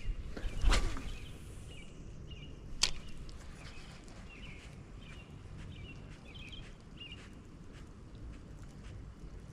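A spinning rod being cast: a fast whoosh about a second in that drops from high to low as the lure and line fly out, then a single sharp click near three seconds. Faint short chirps follow over a low outdoor background.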